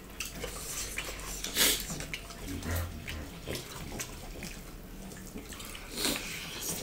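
Wet mouth sounds of people eating with their hands: chewing and lip-smacking, with two louder smacks, one about a second and a half in and one near the end.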